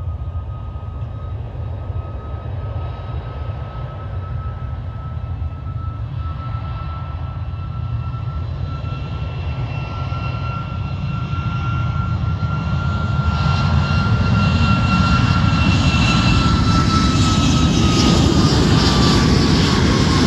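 Jet airliner's engines on the runway: a deep rumble and a high steady whine grow louder as the aircraft approaches. Near the end the whine drops in pitch as it passes.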